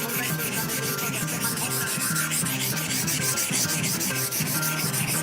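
Steel deba knife bevel scraping back and forth on a wet whetstone in quick, even strokes, several a second, while grinding the single-bevel edge until a burr forms along it.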